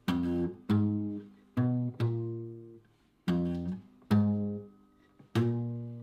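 Small acoustic guitar played chord by chord: six chords at an uneven pace, each left to ring and fade before the next.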